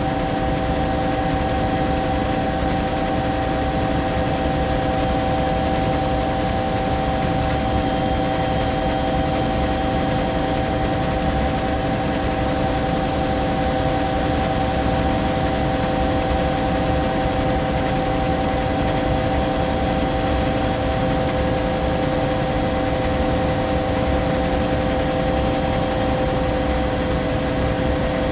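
Cabin noise of a Bell 212 twin-turbine helicopter in flight: a steady, unchanging drone with several constant whining tones over a rushing noise, heard from inside.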